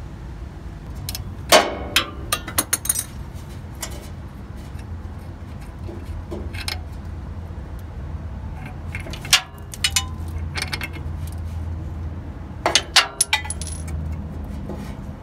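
Hand tool clinking and tapping against a rusty shock absorber's upper mounting nut as it is turned off its stud, in scattered sharp metallic clicks with clusters a couple of seconds in, around the middle and near the end.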